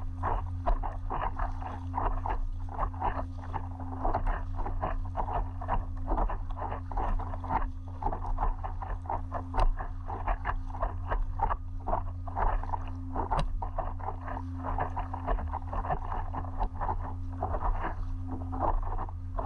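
Water splashing and lapping against an inflatable stand-up paddleboard under way: a dense, constant crackle of small splashes over a steady low hum.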